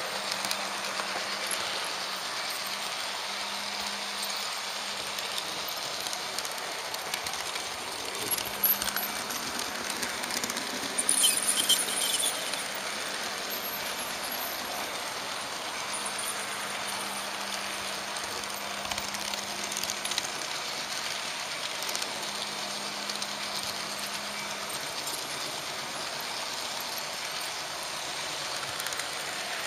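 Märklin HO-scale model train running along the layout's track: a steady rolling rattle of wheels on rail with scattered clicks and a faint hum that comes and goes. About eleven seconds in there is a brief, louder high-pitched noise.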